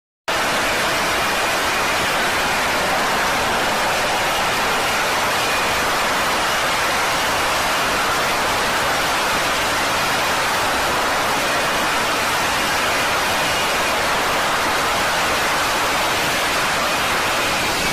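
F-35B's F135 jet engine and lift fan at hover power during a vertical landing: a steady, loud roar with a faint high whine above it.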